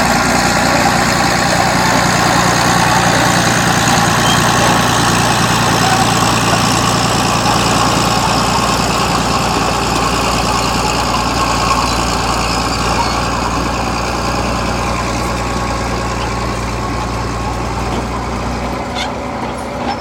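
Crawler bulldozer's diesel engine running steadily as the machine pushes soil with its blade. The sound grows a little fainter in the last few seconds as the bulldozer drives away.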